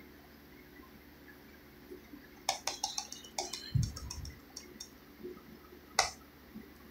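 Clicking from working a computer: a quick scatter of light clicks starting about two and a half seconds in, a dull low thump in the middle, and one sharper click near the end.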